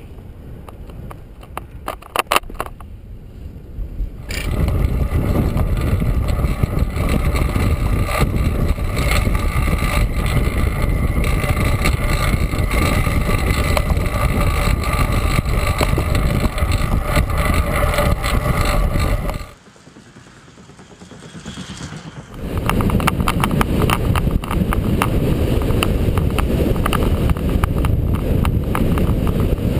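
Wind rushing over the microphone of a camera riding on a moving bicycle, heavy and steady at riding speed. It is lighter for the first few seconds, drops away suddenly for a few seconds a little past the middle, then comes back just as strong.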